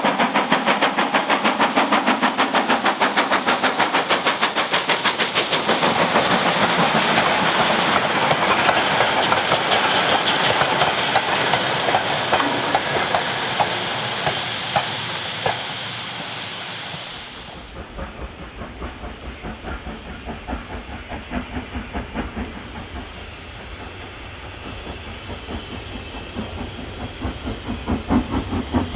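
Steam locomotive working hard with a train, its exhaust beating in rapid chuffs as it passes, then fading as it draws away. About 17 seconds in the sound cuts to a quieter, deeper steam locomotive whose exhaust beats grow louder near the end.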